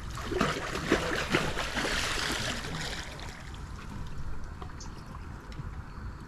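Water splashing and churning for the first three seconds or so, from a large hooked catfish thrashing at the surface beside the boat, then dying down.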